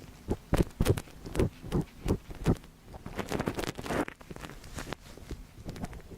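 ASMR ear-cleaning sounds close on the microphone: a run of soft thumps, then denser scratchy rustling about three seconds in, fading towards the end.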